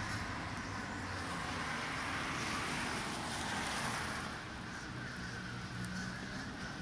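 Outdoor street ambience with a passing vehicle: a steady rush of noise that swells about two seconds in and fades after four.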